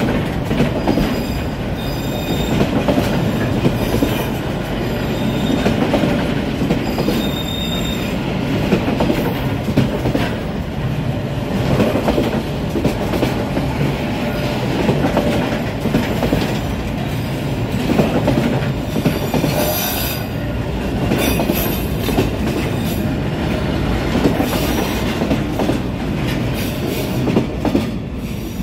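A freight train of container flatcars passes close by: a heavy rumble of wheels on rail with repeated clacks over the rail joints, and high-pitched wheel squeals a few times. The last car clears near the end.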